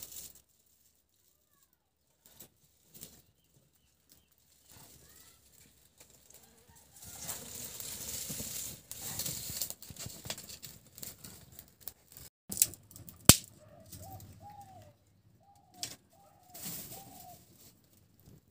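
Dry twigs and straw rustling and crackling as they are pushed into a clay wood-fired stove and catch fire, with one sharp snap a little past the middle. Near the end a bird calls a run of short notes.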